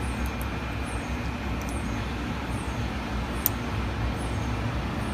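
Steady low machine hum, with a few faint clicks and one sharp tick about three and a half seconds in, as a hex key is worked on the small screws of the sputtering target retainer to loosen them.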